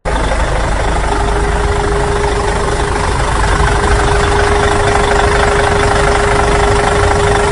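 Small motor of a DIY miniature tractor running steadily at a constant pace, starting suddenly, with a steady whine joining about a second in.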